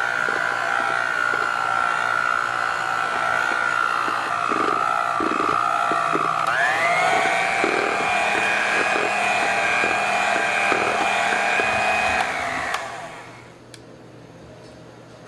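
Electric hand mixer beating crepe batter in a stainless steel bowl: a steady motor whine that rises in pitch when switched to a higher speed about six and a half seconds in, with the beaters clicking against the bowl. It cuts off near the end.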